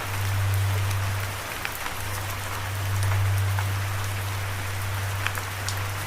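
Steady rain falling, an even patter with individual drops ticking now and then, over a steady low hum.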